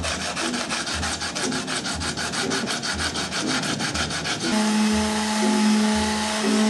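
Hand sanding of an acrylic tank with a sanding block: quick back-and-forth rasping strokes, about seven a second. About four and a half seconds in it gives way to an electric palm sander running with a steady hum.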